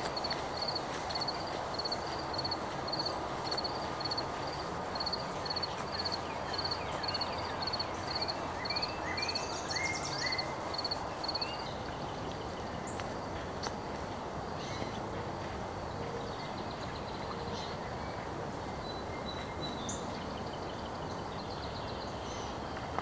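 Outdoor ambience with bird calls: one bird repeats a short high note about twice a second and stops about halfway through, while other birds chirp now and then over a steady background hiss.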